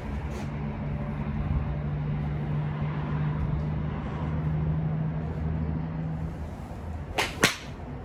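Strong wind rumbling on the microphone, then near the end a golf swing: the club swishing down and striking the ball off the hitting mat, two sharp sounds a fraction of a second apart.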